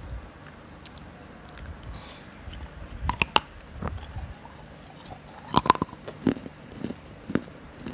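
Close-miked eating: biting and chewing with sharp wet mouth clicks, a cluster of them about three seconds in and another near the end.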